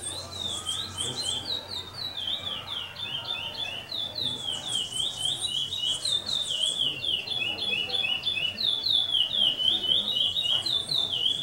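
A songbird singing a long, unbroken run of rapid, high, downward-slurred notes, growing louder toward the end.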